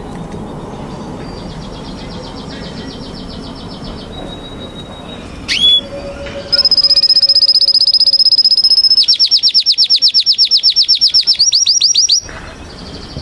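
Domestic canary singing: a soft fast trill first, then a loud song of a held high note that breaks into rapid rolling trills and stops abruptly about twelve seconds in.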